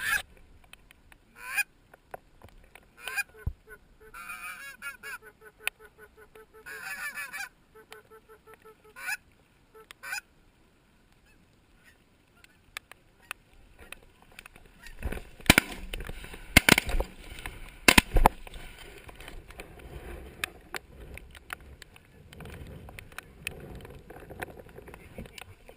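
Geese honking in a string of short, repeated calls, then three loud sharp shotgun shots a little over a second apart about two-thirds of the way in.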